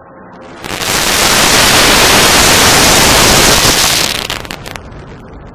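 Fighter jet flying low overhead: loud jet noise that comes up sharply about a second in, holds for about three seconds as it passes, then fades away.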